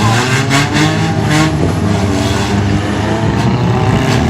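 Several demolition-derby car engines running loudly and revving up and down together, with a few sharp knocks mixed in.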